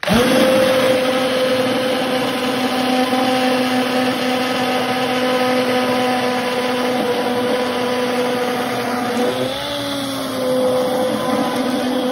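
Hand-held immersion blender switched on and running steadily as it purées a pot of chunky mushroom soup, its motor whine over the churning liquid. The motor's pitch sags briefly about nine seconds in, then recovers.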